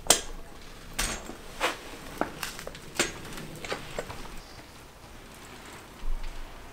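A bicycle being handled and walked out, heard as a series of sharp clicks and knocks about half a second to a second apart, the loudest at the very start. A dull low thump follows about six seconds in.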